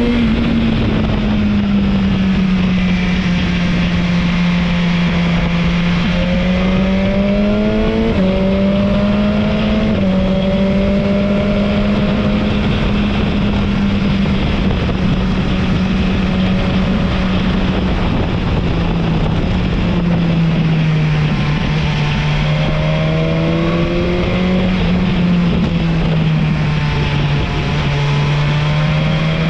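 Motorcycle engine running steadily at road speed, its pitch drifting gently up and down, over a constant rush of wind and road noise.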